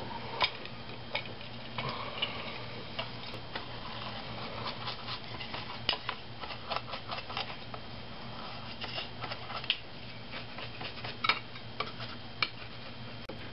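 Irregular small clicks and taps of a metal model train wheel and a coarse brush knocking against a small clear plastic dish while the wheel is scrubbed clean of solder flux in paint thinner, over a steady low hum.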